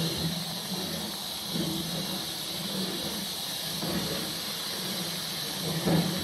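Steam locomotive standing in steam, giving off a steady hiss of escaping steam, with uneven low sounds coming and going underneath and a brief louder sound near the end.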